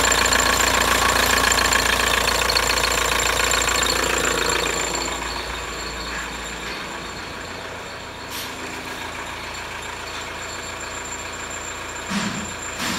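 VW 1.9 TDI (1Z) four-cylinder turbodiesel idling with an even diesel clatter. It drops in level about five seconds in and goes on more faintly, heard from farther away.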